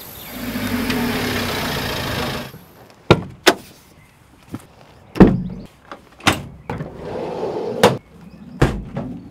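A car passes for the first couple of seconds. Then comes a run of about eight sharp clunks and clicks, with the loudest about five seconds in: car doors shutting and padded camera bags and equipment cases being handled.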